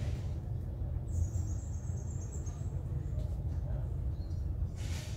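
Steady low rumble of outdoor background noise, with a thin, high-pitched chirping or squeak lasting about a second and a half, starting about a second in.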